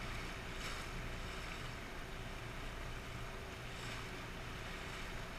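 Small inflatable boat under way at low speed: a steady low outboard-motor hum under a wash of water and wind noise.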